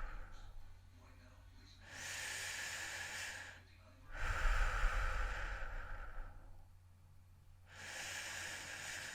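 A person breathing heavily: slow, hissy breaths lasting one and a half to two and a half seconds each, with short pauses between. Stronger breaths alternate with softer ones, and the stronger ones carry a low rumble.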